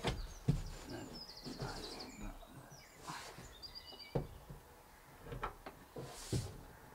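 Faint handling sounds: a few light knocks and taps as a plywood panel is held against the carpeted van wall and a soldering iron is worked at its fixing holes. A small bird chirps in a quick trill about a second in and again briefly near the middle.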